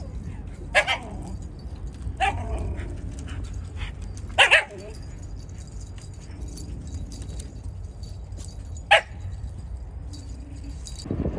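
A dog barking in short, sharp single barks, a handful of times with pauses of a few seconds between; the loudest is a quick double bark about four and a half seconds in.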